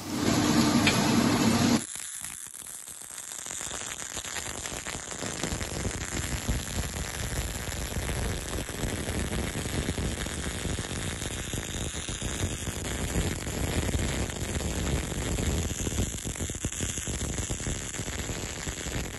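A louder steady hum for about the first two seconds, then a MIG welding arc from an ESAB Origo wire-feed welder (Feed 3004 feeder, set to 20.0 V and 5.7 wire speed) crackling and sizzling steadily as a bead is run.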